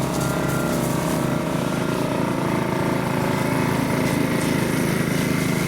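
An engine running steadily, with a slight shift in its pitch about two seconds in.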